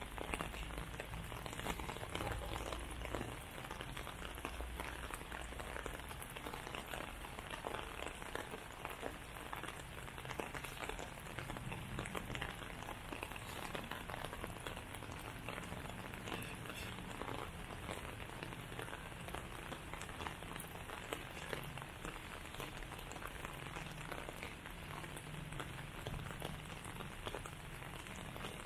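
Steady rain falling on pavement and foliage: an even hiss with many fine drop ticks.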